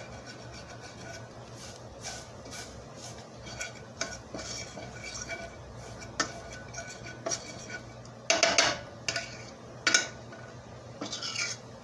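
A metal fork scraping and clinking against a stainless steel skillet as chopped onions and flour are stirred together, with a few louder clanks in the last few seconds. The flour is browning with the onions for gravy.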